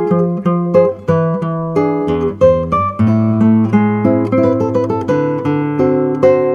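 Acoustic guitar playing an instrumental introduction: plucked notes and chords in a steady rhythm, without singing.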